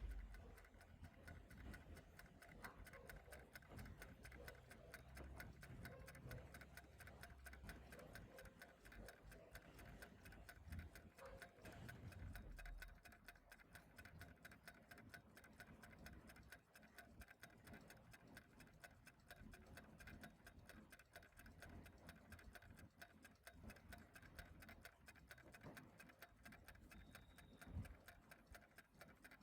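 Faint, steady ticking of a clock, its ticks evenly spaced, over a soft low rumble of room noise.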